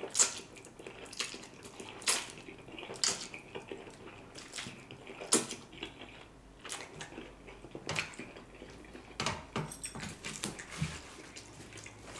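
A man slurping and chewing a mouthful of spicy ramen noodles: irregular wet smacks and clicks, a few of them sharp and loud.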